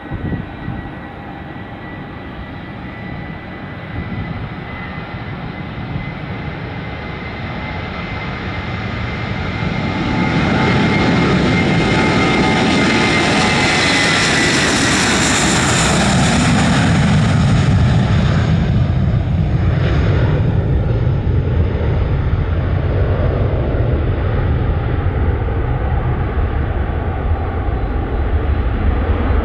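Airbus A321-231 jet engines at takeoff power on the takeoff roll. A steady whine builds as the jet speeds toward and past, loudest about halfway through, then turns into a deep, loud rumble as the aircraft runs away down the runway.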